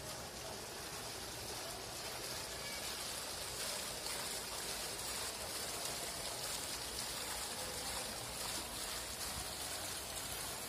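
Water cascading down the steps of a tiered fountain into its pool: a steady splashing rush that grows a little louder over the first few seconds.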